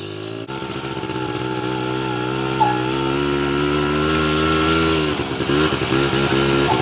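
ATV engine running under throttle, its pitch rising slowly for the first few seconds, then wavering unevenly near the end.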